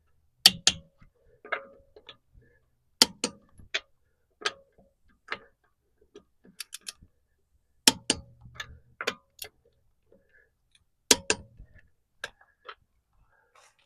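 Click-type torque wrench snapping over on wheel bolts: four loud double clicks a few seconds apart, with lighter ticks and taps between them. Each click means that bolt has reached the set torque of about 103 ft-lb.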